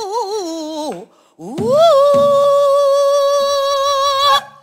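A female pansori singer sings a phrase with a wide, wavering vibrato, breaks off about a second in, then holds one long loud high note for nearly three seconds before cutting off.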